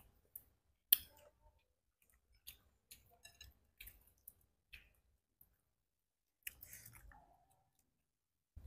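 Close-up eating sounds of shell-on shrimp: quiet chewing with scattered clicks and smacks, and a sharp crunch about a second in.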